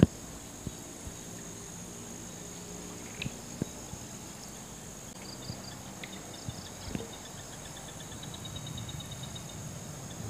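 Evening insect chorus: crickets keep up a steady high-pitched trill, and about halfway through short runs of rapid pulsed chirps join in, with a few faint knocks.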